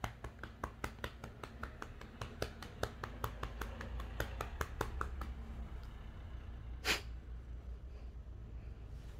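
A hand patting a cat's furry rump in a quick, even rhythm of about four pats a second, which stops about five seconds in. A single louder rustle or thump follows about two seconds later.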